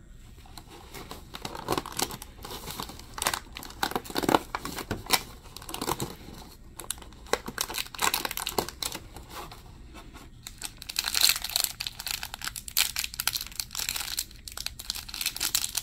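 Hands crinkling and tearing open a small plastic blind bag, with a cardboard box flap handled along the way: irregular crackling and ripping, densest in the last few seconds.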